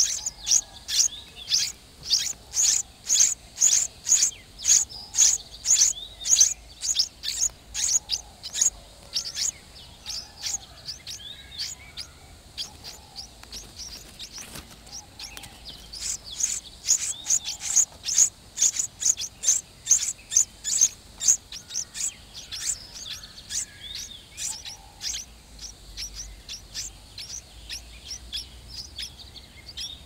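Week-old nestling songbirds begging, a rapid run of short, high-pitched chirps several times a second. The calling eases off for a few seconds past the middle, then picks up strongly again.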